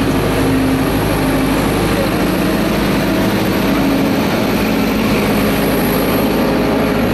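Steady engine drone with a low hum, unbroken throughout, with faint voices under it.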